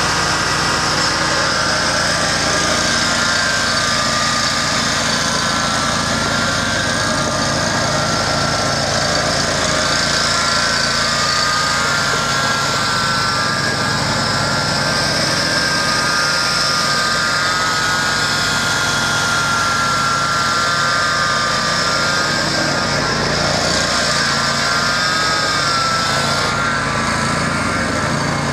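Bob-Cat ZT219 zero-turn mower's engine running steadily while the mower is driven about on gravel, with a higher whine above the engine note that wavers up and down in pitch.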